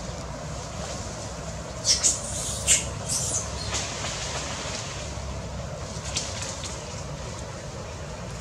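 Steady wind rumble on the microphone, with a handful of short, sharp crackles of twigs and dry leaves as long-tailed macaques move and grab among the branches, clustered about two to three and a half seconds in and once more about six seconds in.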